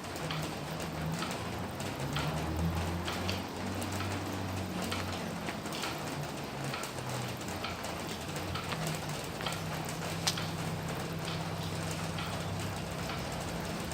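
Steady rain falling, with many separate drops ticking on a surface over the hiss, and a low hum underneath.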